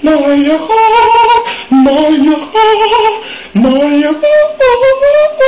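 A voice singing a wordless tune in short held notes, some sliding up in pitch, with brief breaks between phrases.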